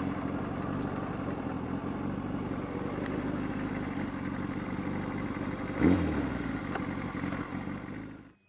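Motorcycle engine running steadily while riding, with a brief louder blip of revs about six seconds in, cutting off abruptly near the end.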